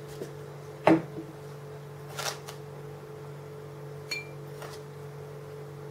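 A lid is taken off a birch-bark container with a sharp knock about a second in, then a spoon scoops sugar, with a light ringing clink a little after four seconds and another faint tick soon after. A steady low hum runs underneath.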